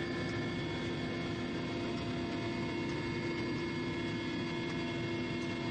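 Steady engine noise: a constant drone with several unchanging tones held over a rushing noise, unbroken throughout.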